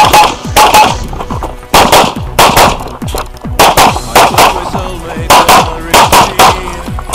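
Rapid semi-automatic pistol fire during an IPSC stage: about fifteen shots or more, most fired in quick pairs with short gaps between targets.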